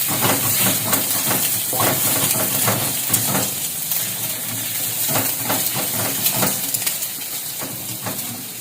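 Egg frying in margarine in a hot pan, sizzling steadily while a spatula stirs and scrapes it in repeated strokes; the sizzle eases a little near the end.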